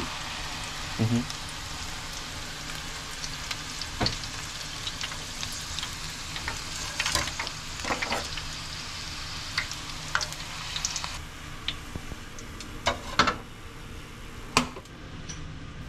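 Battered parsley deep-frying in hot oil, a steady sizzle that eases off about eleven seconds in, with a few sharp clicks along the way.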